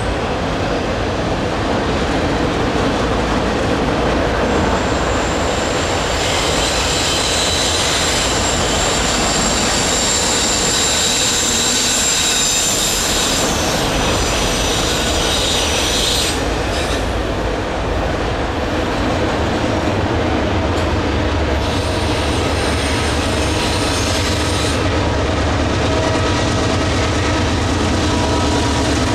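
Freight cars rolling past on a curve, wheel flanges squealing in high steady tones through the middle. In the last third a distributed-power diesel locomotive's steady low engine drone comes in.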